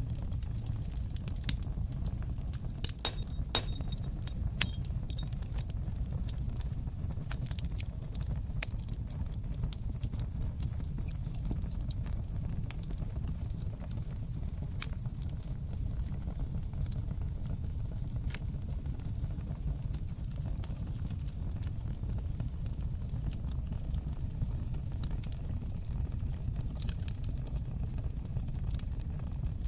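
Fire in a fireplace crackling and popping over a steady low rumble of flames, with a cluster of sharper pops a few seconds in.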